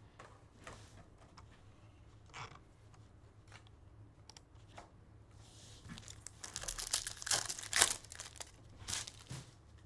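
Foil trading-card pack wrapper being torn open and crinkled by hand: a few faint taps at first, then a run of crinkling and tearing from about six seconds in.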